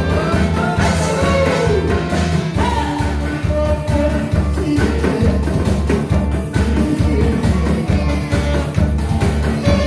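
Live band music: a singer on a microphone carries the melody over amplified accompaniment with a steady bass beat.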